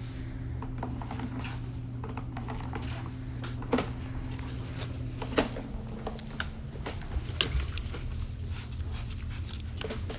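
Sewer inspection camera equipment working in a drain line: a steady low hum with irregular clicks and knocks throughout, two louder knocks about four and five and a half seconds in.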